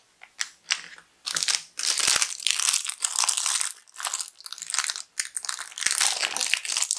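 Small clear plastic bag crinkling and crackling as it is handled and pulled open to free a toy squishy figure, starting about a second in and going on in bursts with short pauses.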